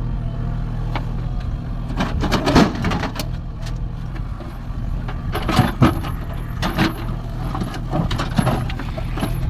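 Diesel engine of heavy machinery running steadily, with several bursts of clattering and scraping, about two, five and a half, and seven to eight seconds in.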